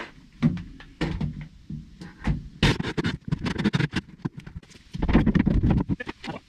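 Irregular knocks, scrapes and rattles of hand tools working on a panel, in uneven bursts with a dense run about two and a half seconds in and another about five seconds in.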